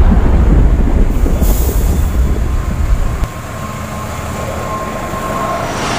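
Diesel-hauled passenger train passing close by on the track. A heavy low rumble fills the first three seconds, then cuts off abruptly. After that the train is quieter, with a thin steady squeal from its wheels.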